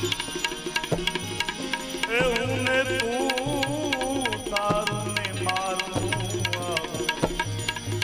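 Devotional bhajan music: tabla keeps a steady rhythm under an instrumental melody of wavering, ornamented notes.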